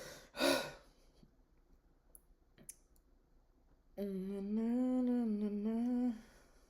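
A woman humming one short wavering phrase for about two seconds, starting about four seconds in. Before it come a couple of faint clicks.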